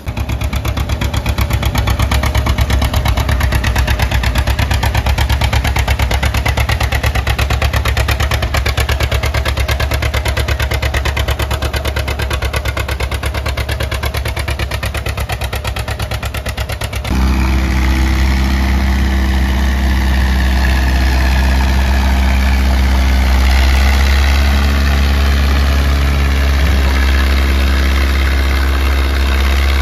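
Two-cylinder John Deere tractor engine working hard under load as it pulls a weight sled, with rapid even firing pulses. About two-thirds of the way through it cuts to a different, smoother-running tractor engine, a Fordson Major pulling the sled.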